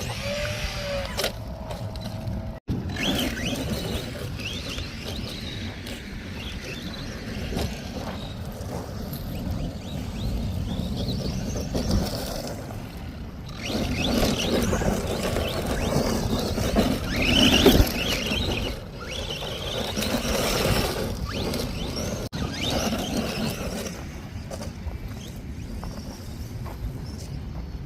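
ARRMA Vortex radio-controlled truck's electric motor whining, rising and falling in short glides as it accelerates and slows, with tyres scrabbling over dirt and gravel. It is loudest about two-thirds of the way through.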